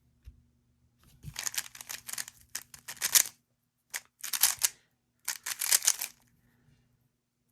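Rubik's Cube being turned fast by hand: three bursts of rapid plastic clicking and scraping, split by short pauses, as the corners are solved first.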